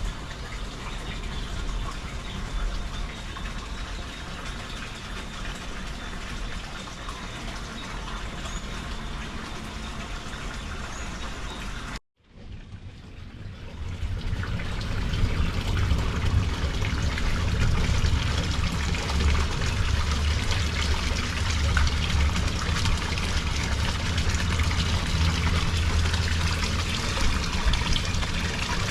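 Storm rain and running water, an even rushing noise. It cuts out briefly about twelve seconds in and returns louder, with a heavier low rumble.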